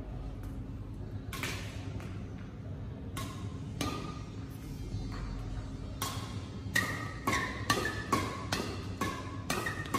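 Badminton rackets hitting a shuttlecock in a fast net rally. There are a few spaced hits at first, then from about seven seconds in a quick back-and-forth of two to three pinging hits a second. Background music plays underneath.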